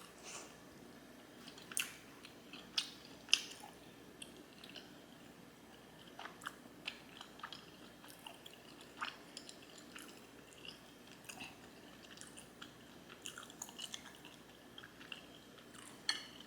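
A person chewing and smacking on a mouthful of homemade sushi roll: faint, irregular mouth clicks and smacks, with a few louder ones in the first few seconds.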